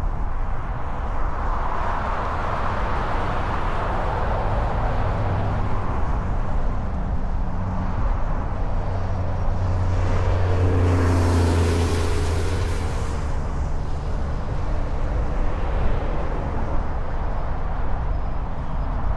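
Steady motor-vehicle road rumble and hiss. About ten seconds in it swells for roughly three seconds, with a brief engine whine, as a louder vehicle passes.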